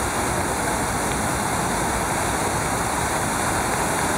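A large fountain's many water jets and arcs splashing down into its basin: a steady rushing hiss.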